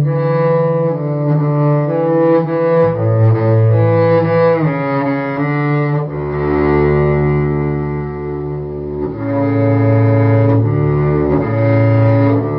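Cello music: slow, held bowed notes, several sounding together over a sustained low bass line, changing pitch every second or two.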